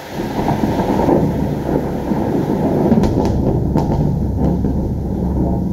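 A thunderclap breaks in suddenly just after the start and rolls on as a loud, deep rumble, with a few sharp crackles about three to four and a half seconds in.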